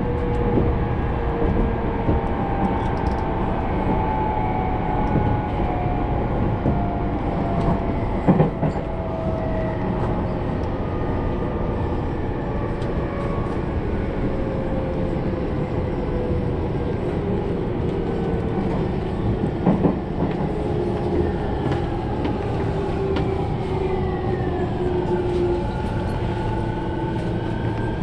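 Electric commuter train running, heard from inside the passenger car: a steady rumble of wheels on rail with the motor whine gliding slowly down in pitch, then dipping and rising again near the end. Two short knocks come about 8 and 20 seconds in.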